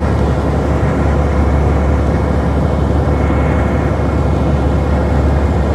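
Bus on the move: a steady, loud rumble of engine and road noise.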